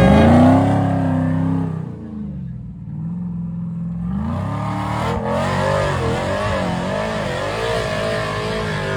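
Off-road 4x4 truck engine revving hard at the start, then dropping back. About four seconds in it picks up again and keeps running with the revs rising and falling.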